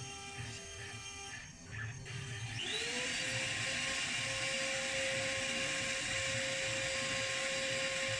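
A 2200 W CNC router spindle motor spins up about two and a half seconds in. Its whine rises in pitch, then holds steady at running speed over a loud hiss.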